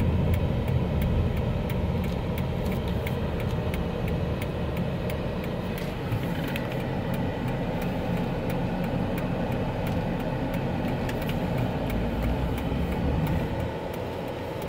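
Car engine and road noise heard inside the cabin as the car slows for a turn, steady and low, with faint even ticking about twice a second from the turn signal.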